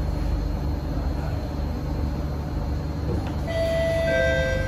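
Kawasaki–CSR Sifang C151A metro train running, its steady rumble heard from inside the passenger car. About three and a half seconds in, a two-note descending chime sounds, the on-board signal that an announcement follows.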